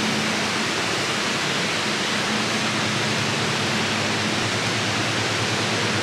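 Steady rushing roar of Fukuroda Falls heard along the access tunnel, with a faint low hum under it.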